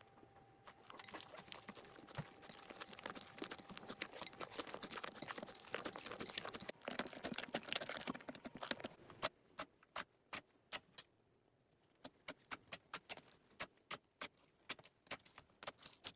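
Slime being squeezed and poked by hand, making dense sticky crackling, then separate sharp clicks and pops with a brief pause about two-thirds of the way through.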